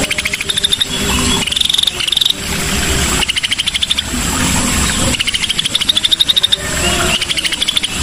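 Cucak sisik song from a lure recording: repeated phrases of rapid trilled notes, each about a second long with short breaks, some rising in pitch toward the end.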